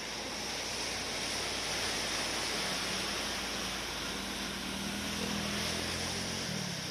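Steady watery hiss of traffic moving through a flooded road, with a vehicle engine hum coming in about two and a half seconds in and changing pitch near the end as a bus drives through the water.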